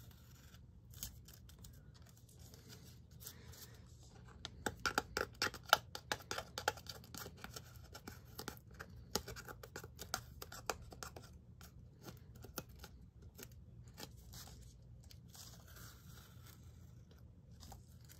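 Blue painter's masking tape being peeled off a freshly airbrushed plastic sheet: faint runs of small crackling snaps, busiest about five to seven seconds in and again around ten seconds in.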